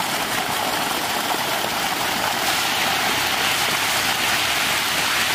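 Thousands of densely packed hybrid magur catfish fingerlings churning at the pond surface: a steady hiss of continuous fine splashing water.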